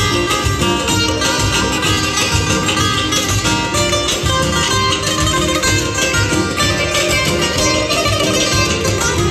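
Azerbaijani saz, a long-necked lute, played live and amplified through PA speakers: a rapid, continuous plucked melody with a steady rhythmic pulse.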